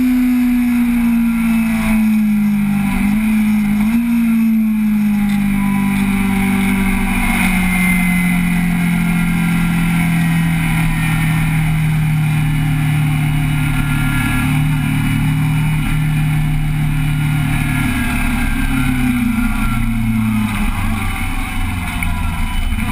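Motorcycle engine running while riding, its note slowly falling in pitch over the stretch, with short dips about three to four seconds in and a step down partway through. Wind rush on the microphone runs underneath.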